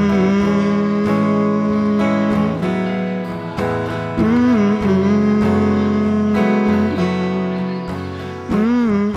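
Acoustic guitar strummed under a male voice singing long held notes that bend and waver now and then.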